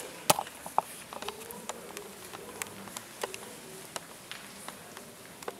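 Scattered footsteps and sharp taps as a choir walks on stage and settles into position, the two loudest taps coming in the first second, over a faint background murmur.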